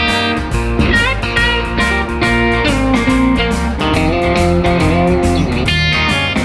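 Background music led by an electric guitar, with bent notes, over a steady beat.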